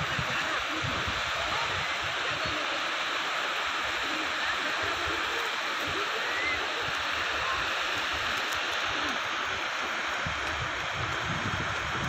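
Steady hiss of sea surf washing on a beach, with an uneven low rumble underneath.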